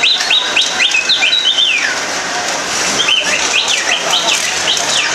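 A bird singing in two runs of quick, high chirps, each about two seconds long, over a steady background hiss.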